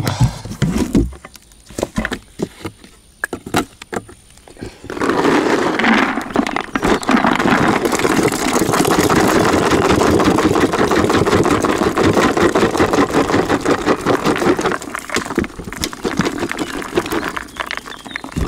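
Groundbait being handled for feeder fishing: a few scattered knocks, then from about five seconds in a dense, continuous rustling rattle that fades near the end.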